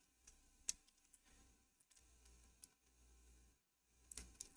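Near silence with a few faint, isolated computer keyboard key clicks, the loudest about two-thirds of a second in and a few more near the end.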